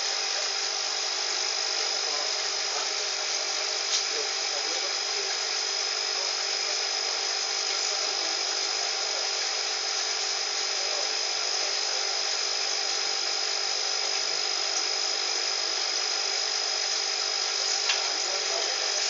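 Steady whir and hiss of a small aquarium pump running and circulating water for an aquascape waterfall, unchanging throughout, with a faint tick twice.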